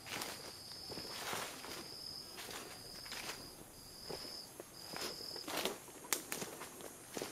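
Footsteps on dry leaf litter along a rainforest trail, with a jungle insect's high steady tone coming in repeated short stretches and falling silent a little past halfway.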